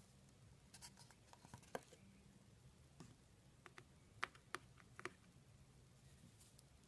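Faint, scattered small clicks and light crackles of small beads pattering onto thick slime and of the slime being lifted and folded over the bead pile.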